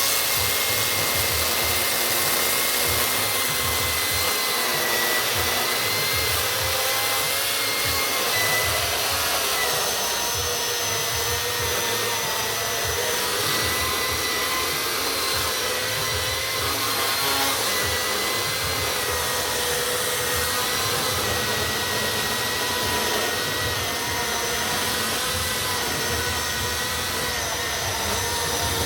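Milwaukee M18 cordless electric chainsaw running steadily, a continuous high motor whine with chain noise whose pitch wavers slightly now and then.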